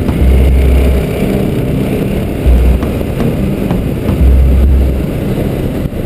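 Trail motorcycle engine running as the bike rides along a dirt track. Wind buffets the helmet-mounted microphone in loud low rumbles about three times.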